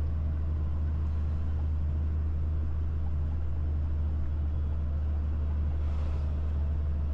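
Steady low engine and road drone of a truck being driven, heard from inside the cab.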